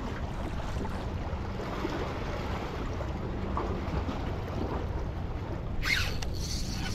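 Seaside ambience: a steady low rumble of light wind on the microphone with water washing against the jetty rocks. A brief rustle of handling comes about six seconds in.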